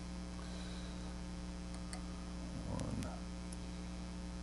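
Steady electrical mains hum, with a few faint clicks of a small hand tool on the screws and a brief faint murmur about three seconds in.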